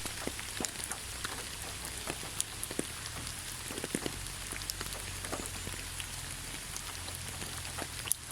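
Steady rain falling on leaves: an even hiss with many separate drops ticking sharply through it.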